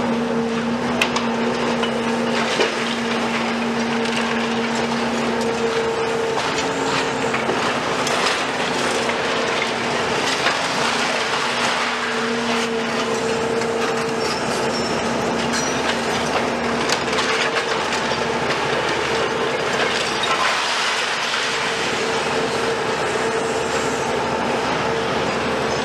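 Demolition excavators (a Volvo EC250 and a CAT 374F high-reach) working: diesel engines and hydraulics running under load, with a humming tone that comes and goes as the machines work, over continual clattering and knocking of concrete rubble.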